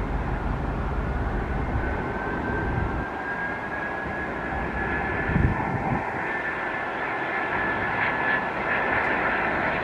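Jet airliner engines running, with a thin high whine that climbs slowly in pitch over a steady rush of engine noise. There is a brief low thump about halfway through.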